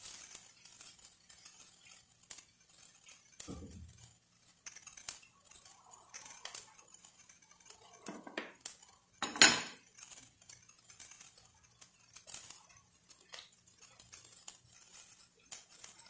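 Faint, scattered clicks and clinks of kitchenware, with a dull knock about four seconds in and one sharper, louder click about nine seconds in.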